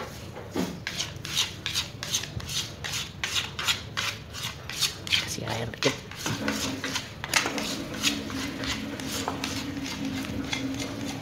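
A plastic spatula scraping ground spice paste out of a stone mortar into a steel bowl, in repeated short rasping strokes, two to three a second. A steady low hum comes in about six seconds in.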